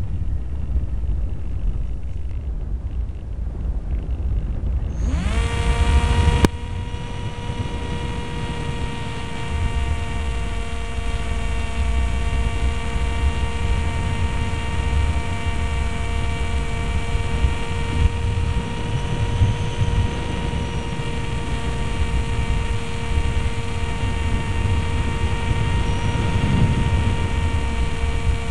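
Multiplex Easy Star's electric motor and propeller, heard from a camera on board the plane. At first there is only low wind rumble on the microphone. About five seconds in, the motor spools up quickly to a steady high whine that holds from then on, over the wind rumble.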